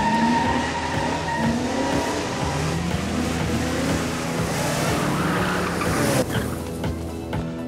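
1958 Plymouth Fury's V8 engine revving hard in repeated rising pulls as the car accelerates, with tyre noise under it. The engine sound cuts away about six seconds in.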